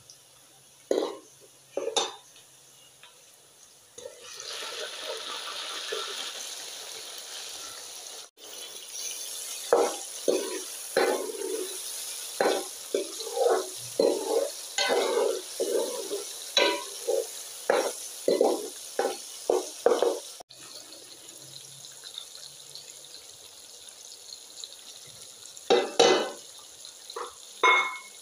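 Onions and tomatoes frying in oil in a steel pan, with a steady sizzle that grows louder about four seconds in. A metal spoon stirs the pan, making runs of short scrapes and clinks against the metal, thickest in the middle and again near the end.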